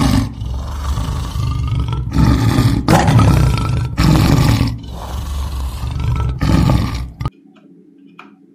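Lion roaring, a series of loud, rough roars one after another. The roaring cuts off suddenly about seven seconds in.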